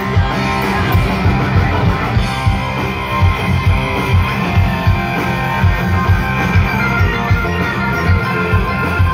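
Live rock band playing through large stage speakers: guitar over a steady drum beat.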